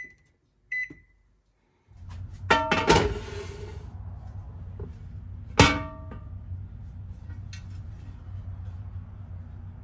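Two electronic oven keypad beeps at the start. Then a Griswold No. 9 cast iron griddle is set down on a hard surface with a quick cluster of ringing metallic clangs about two and a half seconds in, and a single sharp, ringing clang near the middle as it is flipped over and set down again, over a steady low hum.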